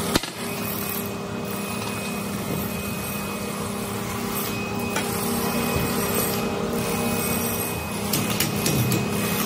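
Steady machine hum over a bed of clatter, with a sharp knock right at the start and a few smaller knocks near the end.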